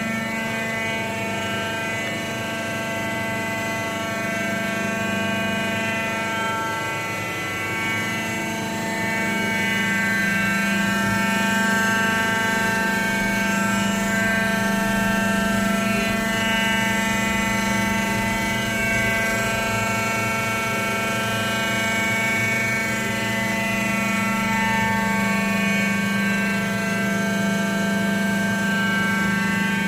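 MKSM-800 skid-steer loader running steadily: a low engine drone with a whine of many steady tones above it. It gets somewhat louder about a third of the way in.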